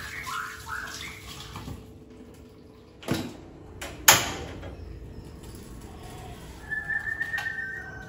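Portable gas stove being lit: two sharp clicks of its knob igniter about a second apart, the second one louder. A bird chirps at the start and gives a steady whistled note near the end.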